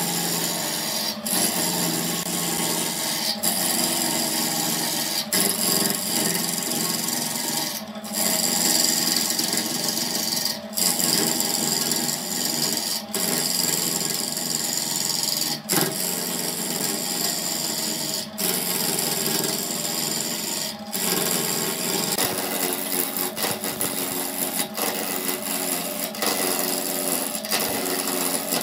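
Burt wood lathe turning a glued-up wood blank while a hand-held turning tool cuts it, a steady scraping hiss of wood being cut away, broken by short gaps every two to three seconds.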